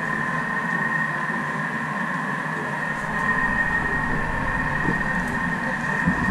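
Thermomix motor running slowly while it heats melting chocolate and butter: a steady hum with a constant high whine. A low rumble joins about halfway through.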